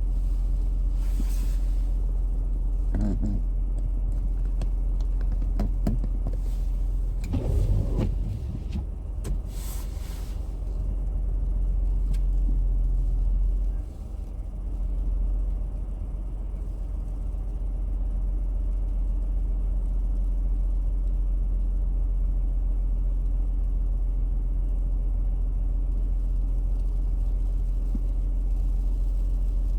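A vehicle engine idling: a steady low rumble that holds through the whole stretch, with a short louder disturbance about a quarter of the way in.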